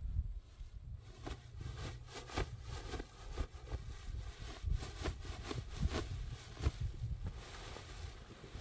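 Wind buffeting the microphone in uneven gusts, a low rumble with scattered faint taps and rustles.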